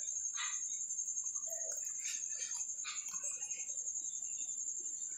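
A ladle stirring chicken pieces in an aluminium pot, with a few light scrapes against the metal. A steady high-pitched whine runs under it throughout.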